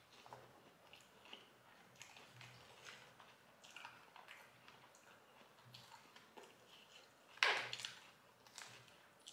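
Faint close-up eating sounds: a fork clicking and scraping in a paper bowl, and chewing. One louder half-second sound comes about seven and a half seconds in.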